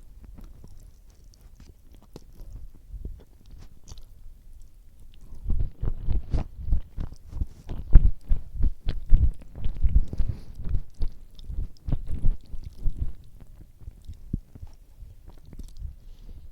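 A person chewing food. It is quiet for the first few seconds, then rapid chewing starts about five seconds in, is loudest around the middle, and tails off near the end.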